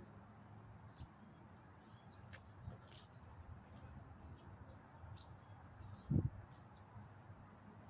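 Wind rumbling on the microphone, with scattered faint bird chirps and a single low thump about six seconds in.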